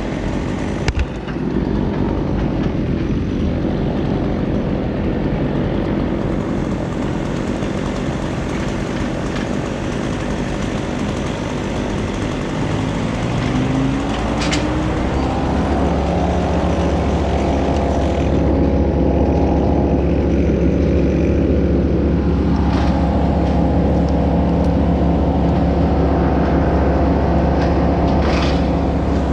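A motor-driven machine's engine running, climbing in speed about halfway through and then holding steady at a higher speed.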